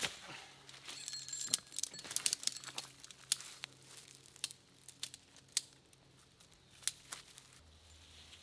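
Nylon hammock-tent fabric rustling and crinkling as it is handled, with many sharp, irregular snaps and clicks, busiest in the first few seconds.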